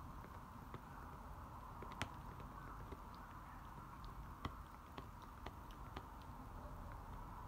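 American Cocker Spaniel gnawing a chew bone: faint, irregular clicks of teeth on the bone over a steady low hum, the sharpest click about two seconds in.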